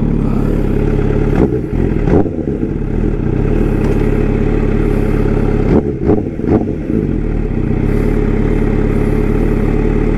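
MV Agusta F4 RC inline-four engine idling steadily, with short throttle blips about one and a half seconds in and again around six seconds in.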